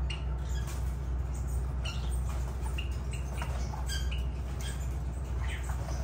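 Lovebirds (Agapornis) chirping and squeaking: many short, high calls in quick, irregular succession, over a steady low hum.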